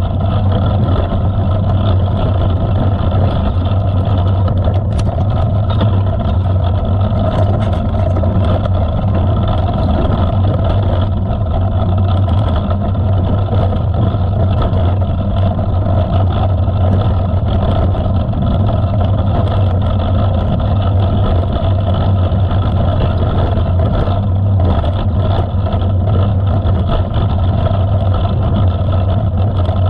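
Steady wind buffeting and rolling noise on a GoPro Hero 7 carried on a bicycle riding a dirt trail: a loud, continuous low rumble with no breaks.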